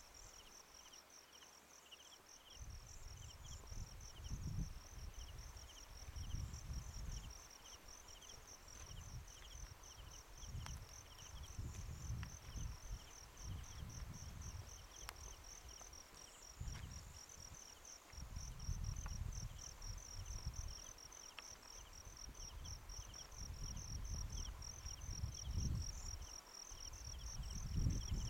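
Field insects trilling steadily in a high, rapid pulse, with a lower chirp coming and going, under gusts of wind buffeting the microphone that start a few seconds in and come and go.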